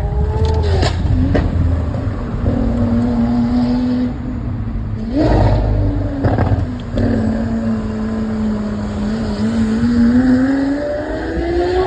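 Lamborghini Aventador SVJ's naturally aspirated V12 engine running on the move, its pitch holding low and steady with a few short loud bursts about five and six seconds in, then rising steadily near the end as it revs up.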